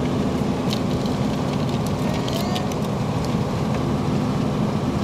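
Steady engine hum and tyre rumble of a vehicle driving on a tarmac highway, heard from inside the vehicle, with a few faint light clicks in the first few seconds.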